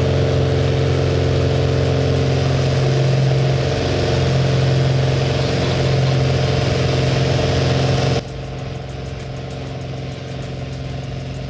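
Small single-engine piston airplane's engine and propeller running steadily at takeoff power, heard loud inside the cabin. About eight seconds in it cuts abruptly to a quieter, thinner engine drone of the plane climbing away.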